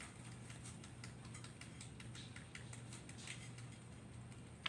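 Faint, irregular small clicks and paper rustles of a paperback picture book being handled and its pages flipped, over a steady low hum.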